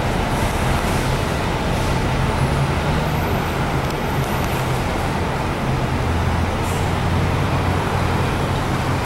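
Mitsubishi Fuso Aero Midi MK bus's 6M61 inline-six diesel engine running low and steady as the bus pulls slowly into a bus stop. The engine note grows a little deeper and stronger about two-thirds of the way through.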